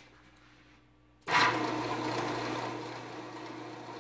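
Flatmaster drum sander switched on about a second in, its motor starting abruptly and then running with a steady hum and rushing air noise.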